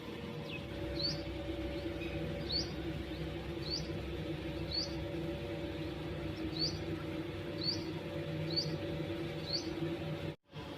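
Sparrow chirping: eight short, high, rising chirps, roughly one a second, over a steady low hum. The sound cuts out completely for a moment near the end.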